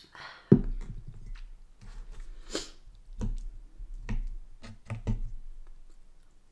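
A mug set down with a knock about half a second in, then a metal fork clicking and scraping against a wooden board as fried mushrooms are speared, with mouth and chewing sounds between the clicks.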